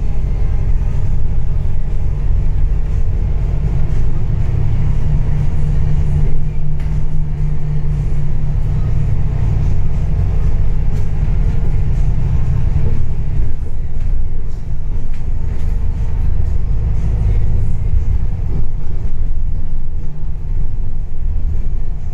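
A bus engine running and its tyres on the road, heard from on board as a steady low rumble. The engine note changes about two-thirds of the way through.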